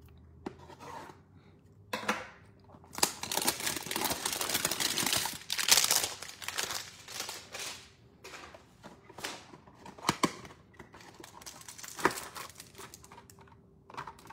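Cardboard trading-card hanger box being slit with a pocket knife and torn open, a dense run of tearing and crinkling packaging that is loudest in the first half. After that come scattered crinkles and clicks as the opened box is handled and the cards are pulled out.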